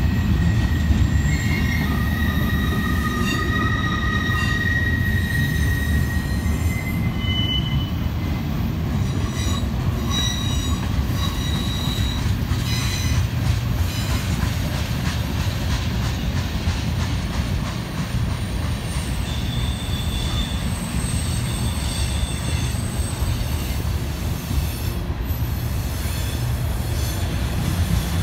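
Freight train of flatcars and tank cars rolling past: a steady low rumble of wheels on rail, with thin high-pitched wheel squeals coming and going, longest in the first several seconds.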